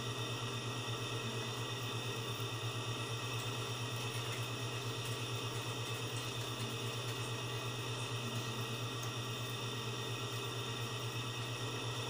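Steady low machine hum with a rapid flutter and several faint constant whining tones above it, unchanging throughout; the pen being worked into the audio port is not heard distinctly over it.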